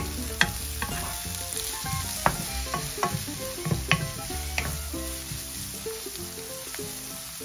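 Chopped onions sizzling in hot oil in a nonstick wok over medium heat, stirred and pushed around by a wooden spatula, with scattered short scrapes and taps of the spatula on the pan.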